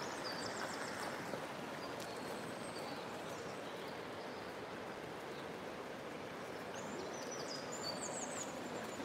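River water running steadily over a shallow gravel bed, with small birds chirping in short high phrases now and then, most at the start and near the end.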